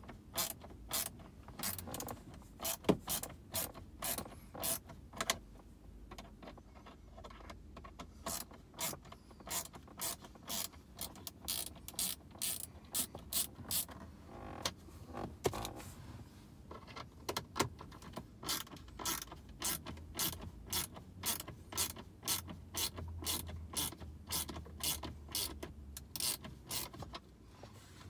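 Ratchet driver clicking as it works a dash trim screw out: a steady run of sharp mechanical clicks, about two or three a second.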